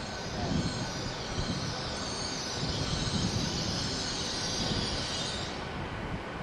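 Great Western Railway Hitachi Intercity Express Train running slowly into a station platform: a low rumble of wheels on track, with a high hiss that dies away near the end.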